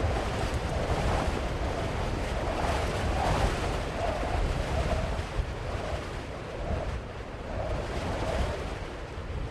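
Wind buffeting the microphone over a steady rushing noise outdoors, with no clear single source.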